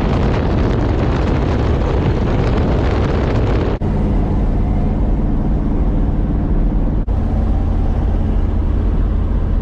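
Engine and road noise inside the cab of a moving pickup truck: a loud, steady rush at first, then a steady engine hum. The sound changes abruptly twice, about four and seven seconds in.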